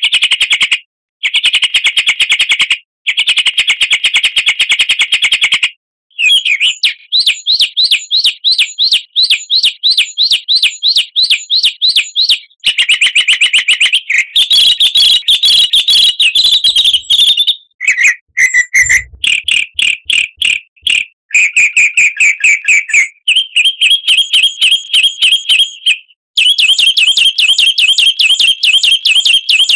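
Songbird chirps and trills played as a bird-training lure track: fast runs of repeated high notes, several a second, in phrases of one to six seconds that stop abruptly and change pitch and pattern from one phrase to the next.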